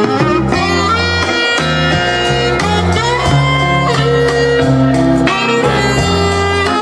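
Instrumental music led by guitar over a steady bass line, playing continuously.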